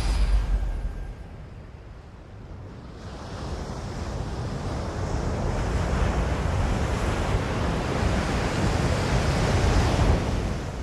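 Rushing water of a waterfall: a steady noise that is quieter for the first couple of seconds, swells about three seconds in, and fades away near the end.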